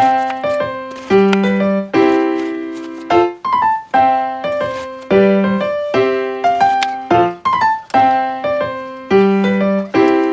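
Background piano music: a gentle melody of struck, ringing notes, its phrase repeating about every four seconds.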